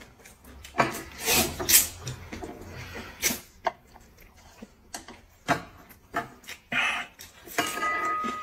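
A person slurping plain boiled noodles: several short, noisy slurps and sucks with pauses between them.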